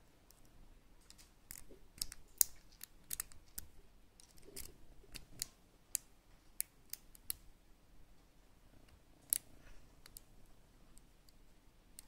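Lock pick clicking and scraping against the pin tumblers of an ABUS Titalium padlock, worked from the back pins under light tension from a tension wrench. The clicks are short and irregular, bunched between about one and a half and seven and a half seconds in with one more near nine seconds, the sharpest about two seconds in.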